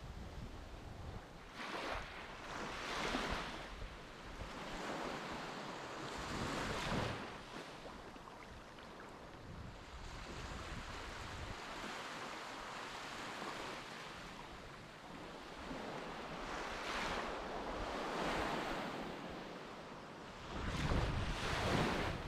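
Sea waves washing in and breaking, surging several times, with wind buffeting the microphone in a low rumble near the end.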